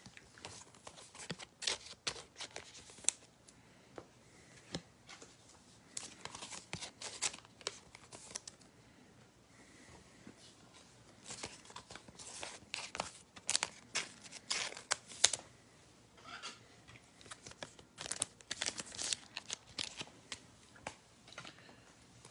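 Quiet crinkling and tearing of trading card pack wrappers and plastic card sleeves being handled, in four bursts of sharp crackle with quieter gaps between them.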